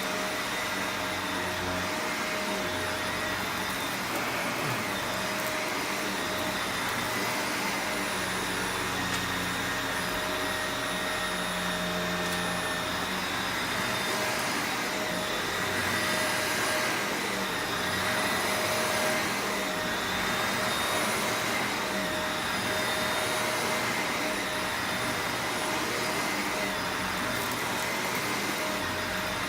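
Shark Rotator Professional Lift-Away upright vacuum cleaner running steadily over carpet, a constant rushing hum with a steady motor whine, swelling slightly for a few seconds past the middle.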